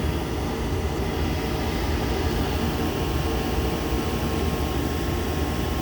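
Natural gas furnace firing with its blower off: a steady low rumble with a faint steady whine. It keeps running while the heat exchanger climbs toward the 210 °F high-limit trip point.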